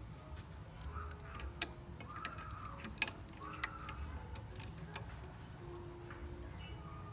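Scattered light metallic clicks and clinks of tools and engine parts being handled while the engine is reassembled, a few of them sharp.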